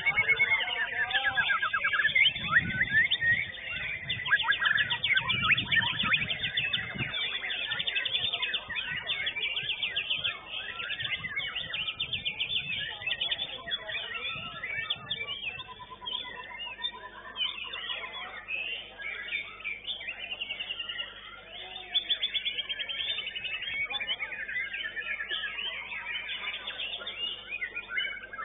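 White-rumped shama (murai batu) singing continuously in a contest cage: a fast, varied stream of trills, chattering runs and whistled notes, with one longer held whistle about halfway through.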